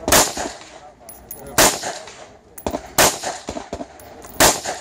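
Semi-automatic rifle firing four single shots at an even pace, about a second and a half apart, each trailing off in a short echo.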